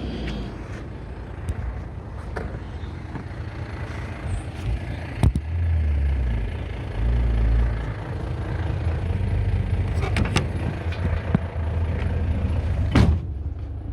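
Dump truck running with a low rumble, with several sharp clanks: one about five seconds in, a pair around ten seconds, and the loudest near the end.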